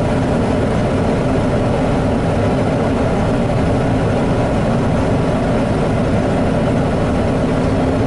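John Deere combine harvesting corn, heard from inside the cab: a steady drone of the engine and threshing machinery under load as the corn header takes in the stalks.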